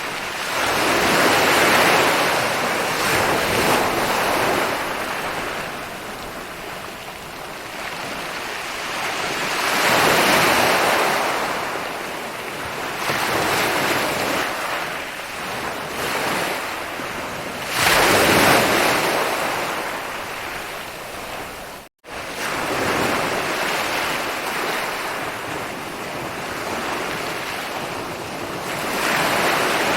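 Ocean surf rolling in and breaking on a beach, each wave swelling to a peak and washing out, about every eight seconds. The sound cuts out for an instant about two-thirds of the way through.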